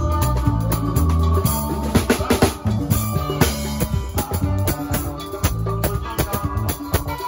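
Live band playing: a drum kit struck with sticks, snare and cymbal hits coming thick and fast, over electric bass, electric guitar and keyboard.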